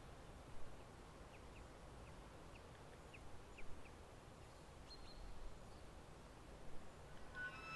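Faint outdoor background hiss with a quick series of short high chirps in the first half and a few soft bumps. Near the end, sustained woodwind-like musical tones begin.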